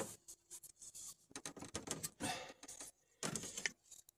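Teflon (PTFE) thread tape being pulled off its roll and wrapped around the threads of a plastic drain fitting: a run of irregular scratchy, rustling pulls with short pauses between them.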